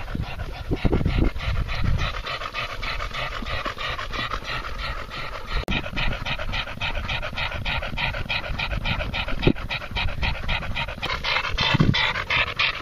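Springer spaniel panting fast and evenly, about five breaths a second.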